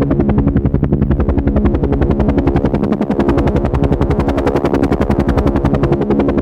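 Helicopter rotor chopping with a fast, even beat over a steady engine hum, holding level throughout.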